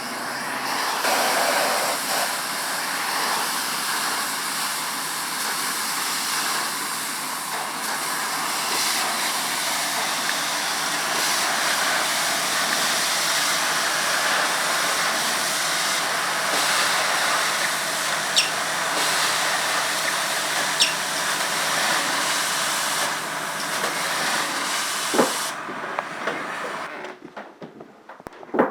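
Steady, loud rushing hiss with a few sharp clicks, cutting off a little before the end.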